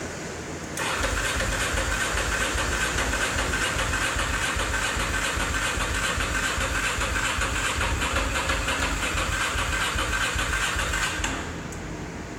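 Starter motor cranking the Ducati Monster 620's air-cooled L-twin engine for about ten seconds at an even, fast pulse, without the engine catching, then cutting off abruptly. It is a no-start, which the owner thinks is a battery problem and a friend thinks is an ignition fault.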